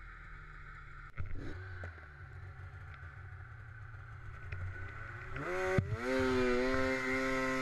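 Snowmobile engine idling low, with a single knock about a second in; near the end it revs up in a smooth rising whine and holds at a steadier, higher pitch as the sled pulls away.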